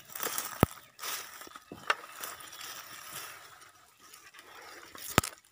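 Dry leaf litter and brush rustling and crunching as people move through forest undergrowth, with two sharp clicks or snaps, about half a second in and again near the end.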